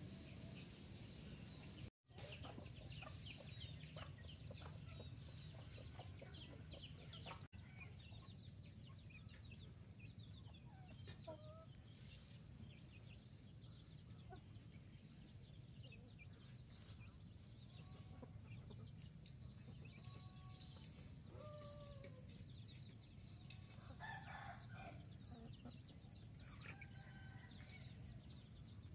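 Faint chickens clucking, with scattered short calls and occasional crowing, mostly in the second half. A steady high-pitched whine runs underneath from a few seconds in.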